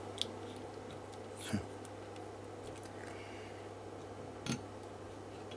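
A few light clicks and taps from oscilloscope probes and clip-on test leads being handled and attached, over a steady low hum.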